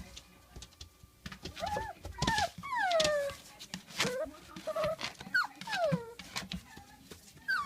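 Five-week-old standard schnauzer puppies whining: a string of short, high whimpers, each sliding down in pitch, starting about a second in.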